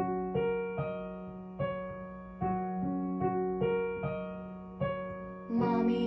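Slow electric piano music: single notes struck one after another over a held low note.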